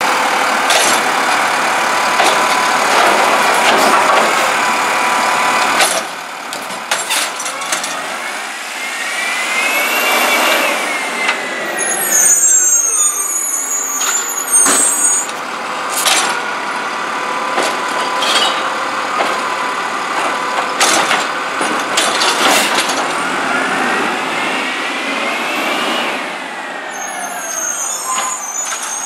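Automated recycling truck working its route: the diesel engine runs and twice revs up and back down while the arm lifts and empties a cart. Knocks and clanks of the carts and arm are heard, along with hisses of the air brakes.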